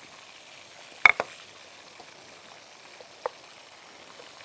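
Oil sizzling steadily in a pan with breaded kofta frying in it, with a few sharp clicks, the loudest cluster about a second in and one more a little past three seconds.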